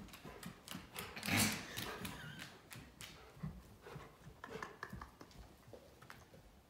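Rottweiler's claws clicking and tapping on a hardwood floor as it trots about, with a louder rustle about a second and a half in.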